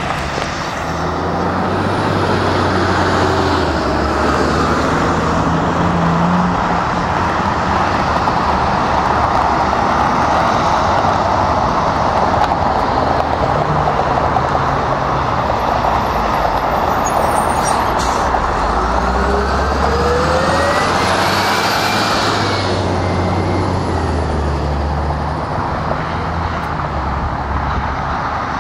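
Jet airliner engines heard from a distance across the airfield, a steady roar with a whine that rises and then falls back about two-thirds of the way through.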